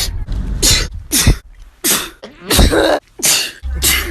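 A quick run of human sneezes, about six short, sharp bursts in four seconds.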